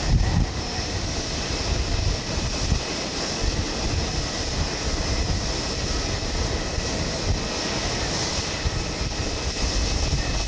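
Jet airliner engines running at taxi power across the airfield: a steady hiss with a faint whine over a low rumble. Gusting wind buffets the microphone throughout.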